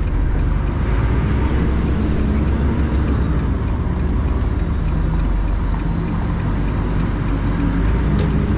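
Lorry's diesel engine running steadily on the move, with tyre and road noise, heard from inside the cab.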